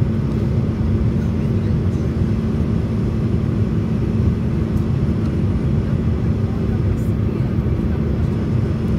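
Steady cabin noise of a Sukhoi Superjet 100 airliner on approach, heard from a window seat beside the wing: a low rumble of its SaM146 turbofan engines and airflow, with a steady hum.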